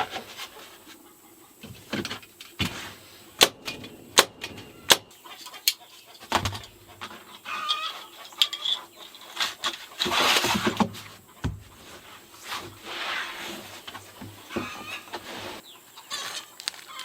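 Chickens clucking, with a scattering of sharp clicks and snaps, several close together a few seconds in.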